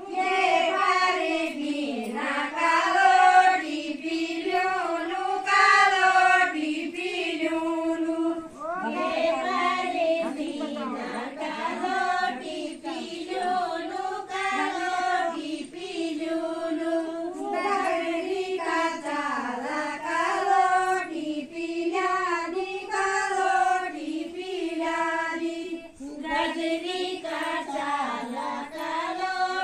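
A group of women singing an Uttarakhandi thadya folk song together without instruments, in short melodic phrases that rise and fall and repeat every couple of seconds.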